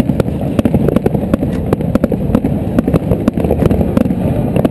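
Aerial fireworks bursting: a rapid, irregular string of sharp bangs and crackles, several a second, over a steady low rumble.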